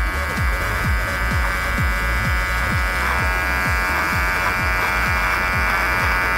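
Cordless electric hair clipper buzzing steadily as it trims a beard, over background music with a steady beat of deep falling bass hits.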